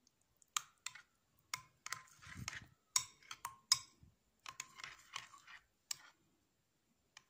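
Metal spoon stirring thick custard in a glass bowl, making irregular sharp clicks and short scrapes against the glass along with wet stirring sounds.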